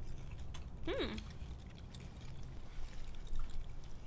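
Quiet chewing of crispy breaded plant-based nuggets, with one short hummed 'mm' about a second in, its pitch rising and then falling.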